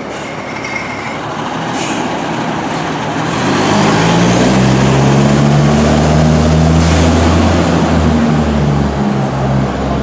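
Diesel engine of a 1995 Pierce Arrow fire engine driving past and pulling around a corner, its steady low drone growing louder about three and a half seconds in. Two brief sharp noises sound along the way.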